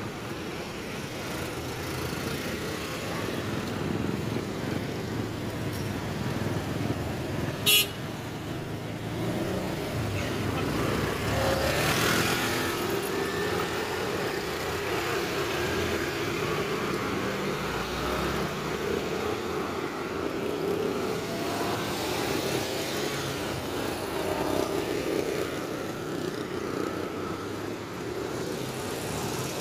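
Road traffic: cars and motorcycles running past on a busy street, with one vehicle passing close about twelve seconds in. A single sharp click about eight seconds in.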